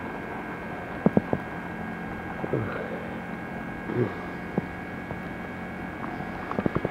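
Steady electronic hum from a handheld camcorder's recording, with scattered clicks of the camera being handled, several of them close together near the end. Two short low sounds that fall in pitch come about two and a half and four seconds in.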